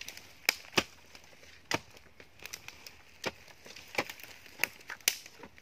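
Hoe blade chopping into soil and roots while digging a planting hole: a string of sharp, irregular strikes, about eight strong ones with a few lighter taps between.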